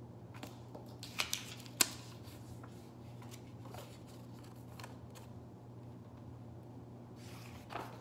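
Paper rustling as a paper cutout is handled and slipped into a brown paper bag, with a few sharp crinkles and taps a little over a second in, the loudest just before two seconds, then softer rustles. A steady low hum runs underneath.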